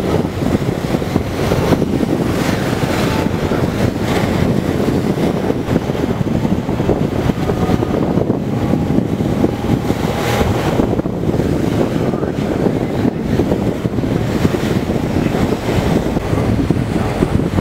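Steady wind buffeting the microphone on a boat under way, with water rushing past beneath.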